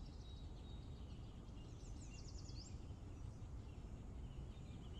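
Outdoor ambience: a low, steady background rumble with small birds chirping high and intermittently, and a quick run of rapid chirps about two seconds in.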